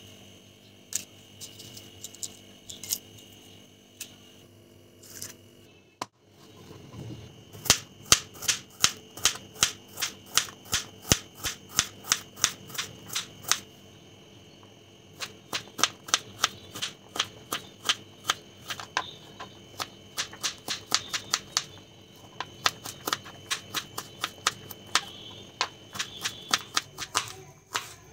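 Kitchen knife chopping carrots on a plastic cutting board: quick sharp knocks of the blade on the board, about three a second, with a short pause about halfway through. The first few seconds hold only a few scattered knocks.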